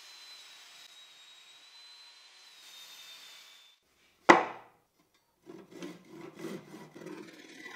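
Japanese pull saw cutting through the pine side of a wooden box by hand, a rhythm of rasping strokes about two to three a second that starts about five and a half seconds in. Before it, a faint steady hiss with a thin high whine, then a single loud knock as the wooden box is set on the bench.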